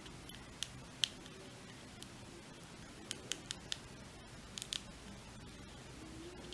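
Light, sharp clicks and taps from handling a mobile phone and its small parts during a repair, coming singly and in quick little clusters of two to four.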